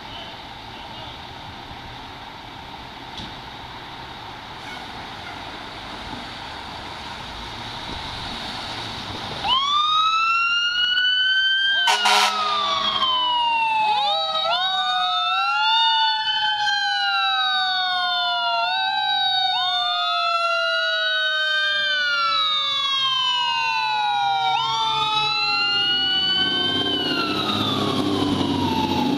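Steady street noise, then about ten seconds in fire truck sirens start: several Federal Q2B mechanical sirens winding up and coasting down in overlapping rising and falling wails, one slowly falling away, with a brief air horn blast just after they start. Near the end a fire truck's engine rumbles past close by.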